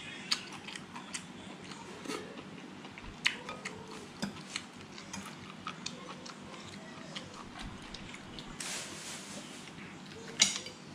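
Eating mussels: scattered light clicks of a fork and spoon against mussel shells and a ceramic plate, with chewing. A brief hissing noise comes about nine seconds in, and a sharper clink about a second later.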